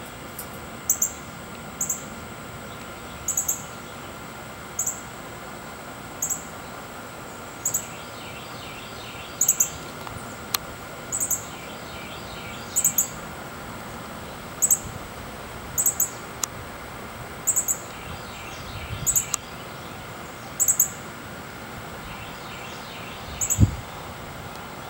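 Male ruby-throated hummingbird calling from a perch: short, sharp, very high chip notes, singly or in quick pairs, about once a second. A low thump comes near the end.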